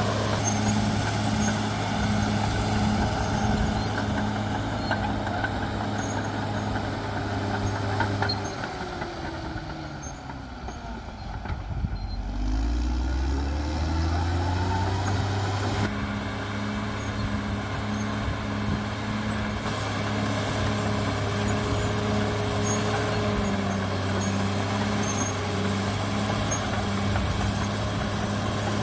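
CAT D6R XL bulldozer's diesel engine running steadily under work. About a third of the way in the revs drop, then climb back up a few seconds later.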